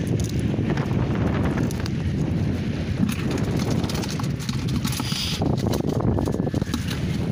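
Wind rumbling on the microphone, over irregular small clicks and knocks of a monofilament fishing net being handled against a plastic container, with a brief hiss about five seconds in.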